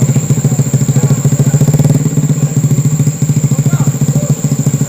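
Mitsubishi Canter truck's diesel engine running steadily with a fast, even pulse.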